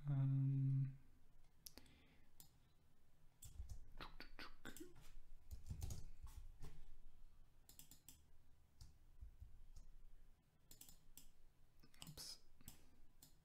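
Typing on a computer keyboard: scattered key clicks in short irregular runs. It opens with a brief steady hum about a second long, the loudest sound here.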